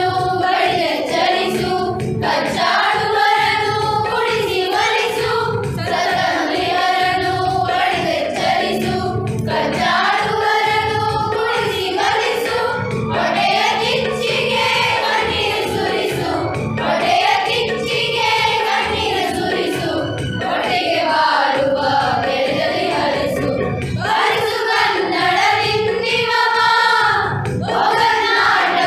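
A group of young female voices singing a Kannada song together in unison, over musical accompaniment with a steady beat.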